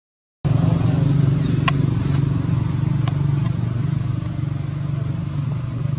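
Steady low hum of an engine running, coming in after a split-second dropout at the start, with one short sharp tick about two seconds in.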